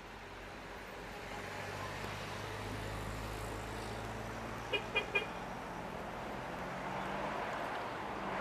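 A motor vehicle running, its low hum swelling over the first few seconds, with three short toots of a car horn in quick succession about five seconds in.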